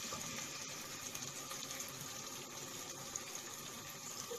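Chopped onions sizzling steadily in hot ghee in a pot, being fried toward golden brown.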